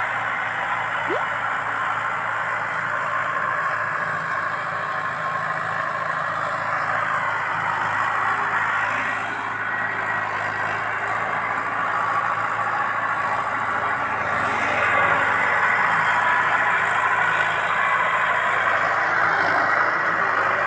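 Mahindra Arjun 555 tractor's diesel engine running steadily under load while it pulls a sugarcane-laden trolley, growing a little louder about two-thirds of the way through.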